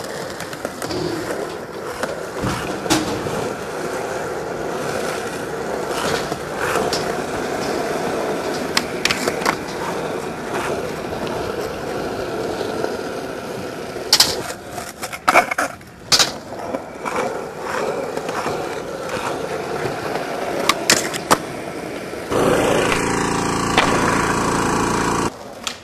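Skateboard wheels rolling on smooth concrete, broken by sharp clacks of the board hitting and landing, several close together in the middle. Near the end a steady rushing noise for about three seconds, then it cuts off.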